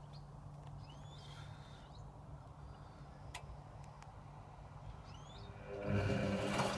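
Servis Sapphire 6055 washing machine mid-wash: a low steady hum while the drum rests, then about six seconds in the motor starts and turns the drum with a much louder, steady pitched hum.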